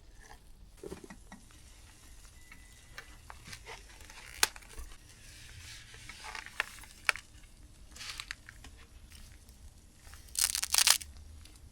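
Light scattered clicks and knocks of handled cooking gear, then a loud crinkling, tearing rustle of packaging near the end.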